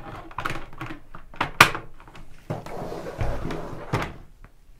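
Plastic clicks and knocks of a motorcycle helmet's clear visor being fitted back onto its side pivot mechanism, with a stretch of rubbing and a dull thump about three seconds in as it is pressed into place.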